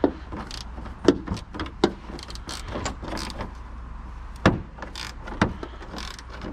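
Irregular clicks and knocks of a hand tool and metal parts being handled under a pickup truck's raised hood, the sharpest knock about four and a half seconds in, over a steady low hum.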